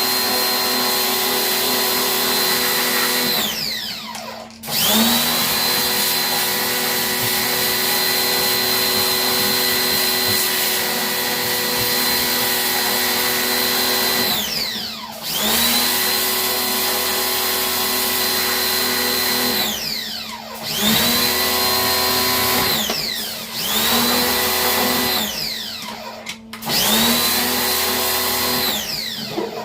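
Electric motor of a cleaning machine, most likely a portable pressure washer, running in bursts while the blower cover is washed. Each run starts with a rising whine and ends with a falling one as the motor winds down. There are six runs with short gaps between them, and the run from about 5 to 14 seconds is the longest.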